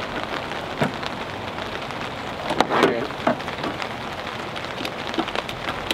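Steady patter of rain, with a few clicks and knocks from a jump-starter's clamp being handled and fixed onto a truck battery.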